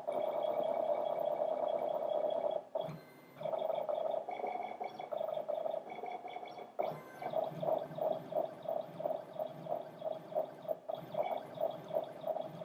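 Squink PCB printer's stepper motors whining as the print head moves, a steady tone that stops briefly about three seconds in. From about seven seconds in it pulses in a regular rhythm, about two beats a second, as the head starts printing the traces.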